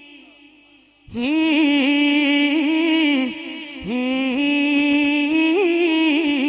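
A man's solo voice singing a Punjabi/Urdu naat without instruments, amplified through a microphone. The notes are long and drawn out with a wavering, ornamented pitch. The voice comes in about a second in and breaks briefly past the middle before resuming.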